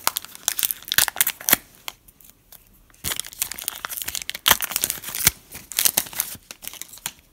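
Foil wrapper of a Panini Illusions trading-card pack being torn open and crinkled, in crackling bursts with a short lull about two seconds in.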